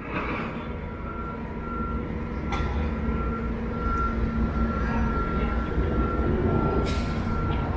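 Heavy vehicle engine rumbling, growing louder, with a steady high whine over it and two brief clicks.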